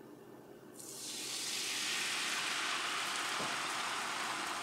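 Beaten eggs poured into hot, nearly browned butter in an All-Clad stainless steel frying pan, setting off a strong sizzle that starts suddenly about a second in and then holds steady. A good strong sizzle like this shows the pan is hot enough for the eggs to set without sticking.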